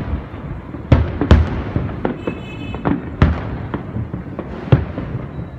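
Aerial firework shells bursting in an irregular series of booms and bangs, with continuous crackling between the bursts.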